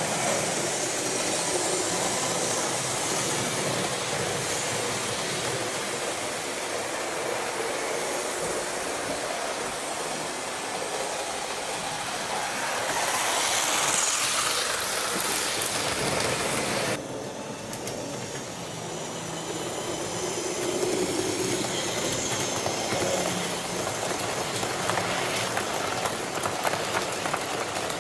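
Model train running along layout track, a steady rolling and clicking of wheels on rail. The sound changes abruptly a little over halfway through.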